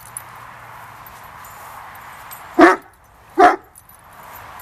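A dog barks twice, a little under a second apart, about two and a half seconds in.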